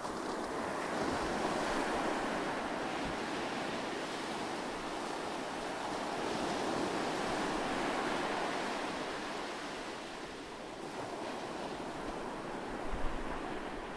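Ocean surf: waves washing in as a steady hiss that swells and eases every few seconds, with a brief low thump near the end.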